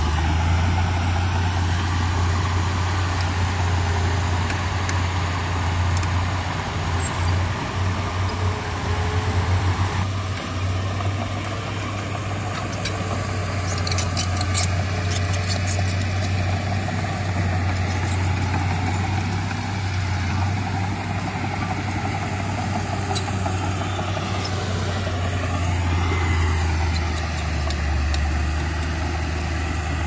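Komatsu D31P bulldozer's diesel engine running steadily under work, with a cluster of sharp clicks about fourteen seconds in and a rise and fall in pitch about twenty-five seconds in.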